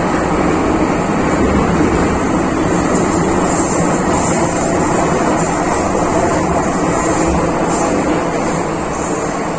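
MTR Tsuen Wan Line M-Train electric multiple unit running at speed, heard from inside the carriage: a loud, steady rumble of wheels on rail and running gear, with a constant faint high hiss. It eases off slightly near the end.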